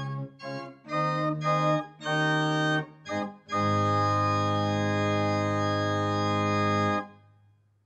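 Two-manual electronic church organ playing sustained chords with short breaks between them, then a long final chord that stops sharply about seven seconds in.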